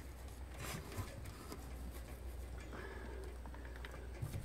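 Faint paintbrush strokes, a few soft scuffs as paint is worked into gaps in the wooden soffit, over a steady low rumble.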